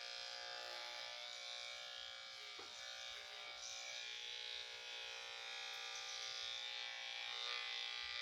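Electric pet grooming clippers running with a steady, constant buzz.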